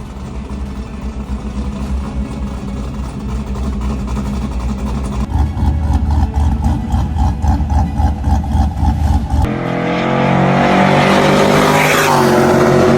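Pickup truck engine running and revving, changing abruptly about nine seconds in to a higher, stronger note, with the revs dropping near the end.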